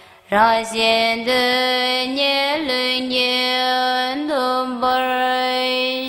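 Background music: a solo chant-like melody in long held notes with sliding ornaments between them.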